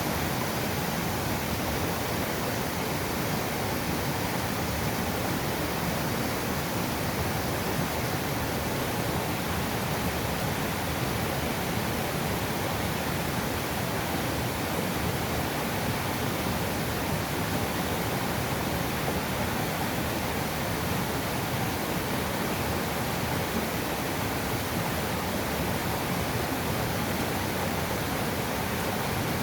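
Mountain stream rushing over rocks in a steady, unbroken flow.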